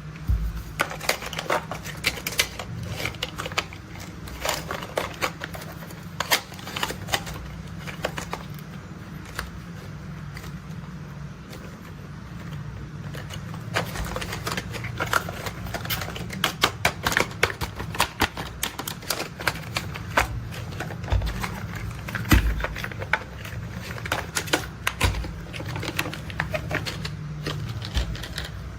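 Toy construction vehicles being handled: quick, irregular clicking and rattling of small hard parts, over a low steady hum.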